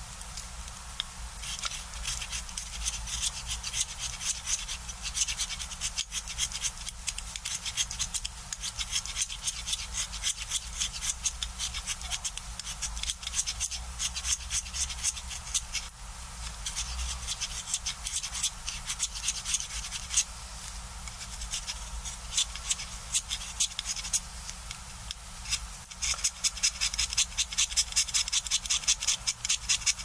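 A small craft knife shaving wood and lead from the point of a colored pencil: a continuous run of short, dry scraping strokes, which settle into an even, quick rhythm near the end.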